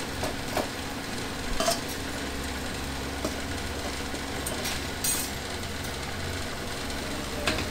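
Metal ladle stirring a pan of thin curry in an aluminium pan, with a few light scrapes against the pan and a faint sizzle, over a steady low hum.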